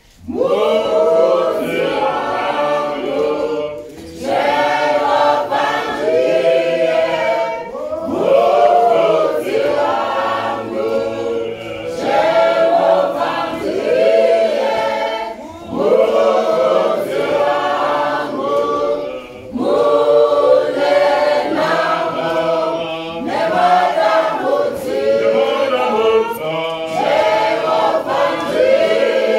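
Mixed choir of women's and men's voices singing a Shona hymn a cappella, in phrases of a few seconds with brief breaths between them.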